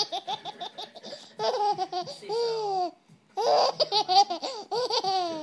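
A baby laughing: a quick run of rapid giggles, then longer, squealing laughs that fall in pitch, with a short pause about three seconds in.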